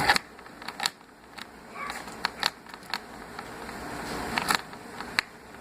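Irregular light clicks and taps, about a dozen, scattered over a faint background hiss.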